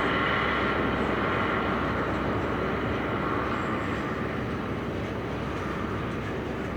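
Container freight train rolling past, a steady rumble and rush of wagon wheels on rail that eases slightly over a few seconds.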